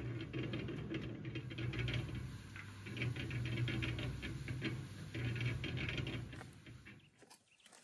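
Small cement mixer running: a steady low motor hum with a continuous patter of small rattles from the mortar tumbling in the turning drum. It fades out near the end.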